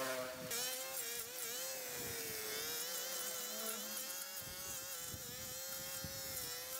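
A small petrol engine running steadily at high revs, its pitch wavering only slightly.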